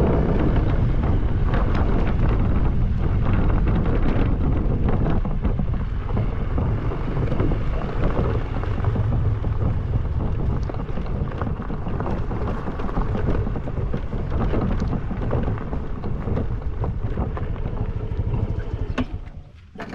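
Heavy wind rumble buffeting the microphone as it is carried at speed on a bike, loud and continuous, dropping away suddenly about 19 seconds in as the ride stops.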